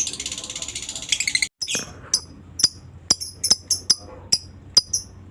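Lovebird's ngekek: a fast, high, rattling chatter for about a second and a half, then after a brief break a run of short, sharp high chirps about two or three a second.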